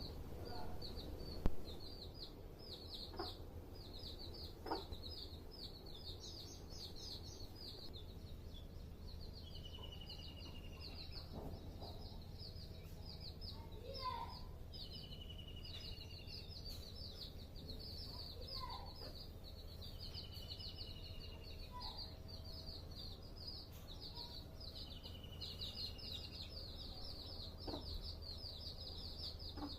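Chicks peeping rapidly and continuously in high, short chirps, with a few low clucks from the hen now and then. A longer, falling call repeats about every five seconds.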